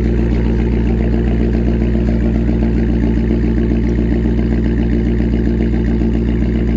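C5 Corvette Z06's LS6 V8 idling steadily while warming up, with a throaty exhaust note.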